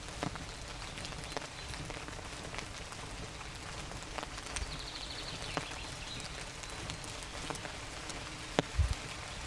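Light rain falling in a forest, single drops pattering and ticking on leaves. A short, high, rapid trill sounds about halfway through, and a couple of low thumps come near the end.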